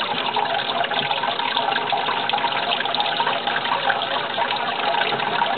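Steady running water, an unbroken rushing hiss.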